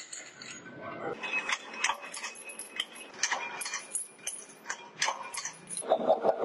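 Steel sprocket blanks clinking and clattering against each other and against metal as they are handled and set on a press die: scattered sharp metallic clicks with a bright ring. Near the end a machine starts a rapid, even knocking, about five beats a second.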